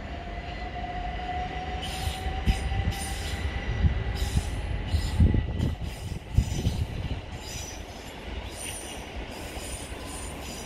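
Train wheels running over pointwork: a steady low rumble, with a run of sharp irregular clicks and knocks as the wheels cross the points, loudest midway, over a faint steady squeal.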